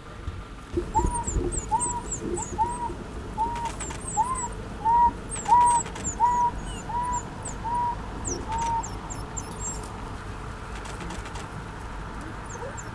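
A bird calling a steady series of short hooting notes, about two a second, that stops about nine seconds in, with thin high chirps scattered above it.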